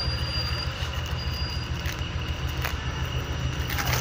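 A steady low hum with a thin high whine over it, with a couple of light taps and, near the end, rustling and crackling of packaging as a wrapped bundle is opened.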